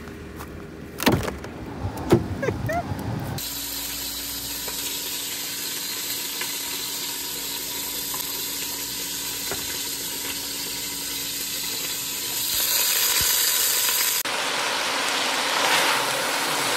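Footsteps outdoors with a couple of sharp thumps, then a steady frying hiss with faint crackles, like meat browning in a pot.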